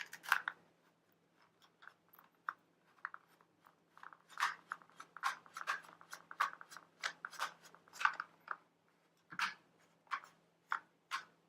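Screwdriver turning out the screws that hold the battery to a Dyson V6 stick vacuum's plastic main body: a run of short, irregular clicks and scrapes, busiest in the second half.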